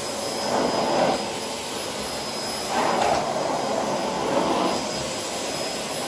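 Philips XD3110 bagged vacuum cleaner running at its highest suction setting while its floor nozzle is pushed back and forth over a rug. The steady rush of air carries a thin high whine and swells twice as the nozzle moves, about half a second in and again around three seconds in.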